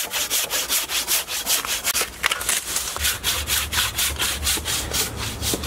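Hand saw cutting through a live tree branch in quick, even back-and-forth strokes, about five a second. A low rumble joins in about three seconds in.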